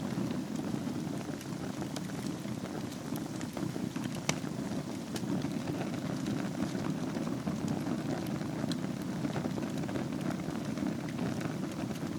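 Wood fire burning in a fireplace over glowing embers: a steady low rush with scattered light crackles, and one sharper pop about four seconds in.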